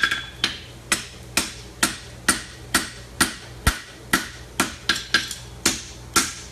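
Steady hand-hammer blows on aluminum horseshoe stock over an anvil, about two strikes a second, flattening a toe bend; some blows ring briefly off the anvil.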